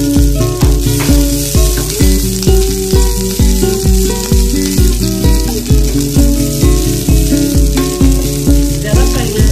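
Background music with a fast, steady beat, the loudest sound throughout, over the sizzle of shredded cabbage frying in hot oil in a pan as it is stirred with a spatula.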